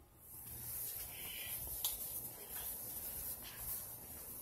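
Faint handling noise of small plastic items: rustling and scraping with a few light clicks, over a steady background hiss.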